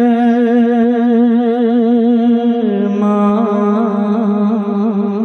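A male naat reciter's sung voice holding a long wordless note with a wavering vibrato. About two and a half seconds in it drops to a lower note and ornaments it in melismatic turns.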